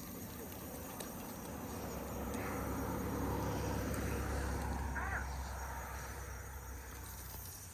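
Steady high-pitched chorus of insects chirping, with a low rumble that swells in the middle and fades again.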